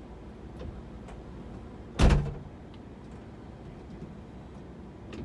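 Minivan rear liftgate pulled down and slammed shut: one loud slam about two seconds in, with a short low ring after it.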